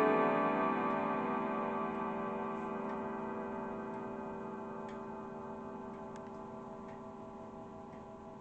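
Grandfather clock chimes from an Urgos triple-chime movement ringing out after the last stroke, the rich chord of tones fading slowly and evenly, with the clock's faint tick underneath.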